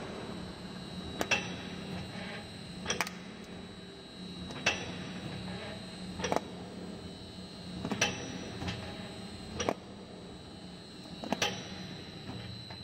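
Downspout elbow machine crimping a round steel downpipe into a corrugated bend: a steady motor hum with a sharp clack about every second and a half to two seconds, about eight in all.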